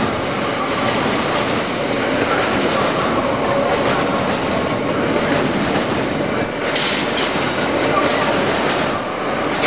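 A train passing close by along a station platform at speed: a continuous rumble of wheels running on the rails, with a clatter of wheels over the track.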